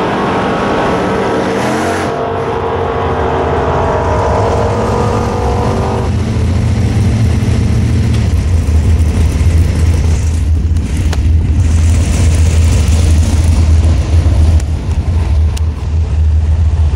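Drag race car engine running hard, its pitch shifting about two seconds in. After about six seconds the engine's note gives way to a heavy low rumble that runs on to the end.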